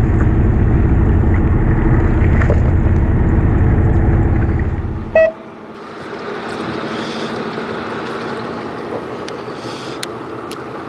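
Fishing boat's engine drone with a steady low hum that cuts off abruptly about five seconds in after a short beep. After that comes a quieter, even hiss of wind and water, with a few faint ticks near the end.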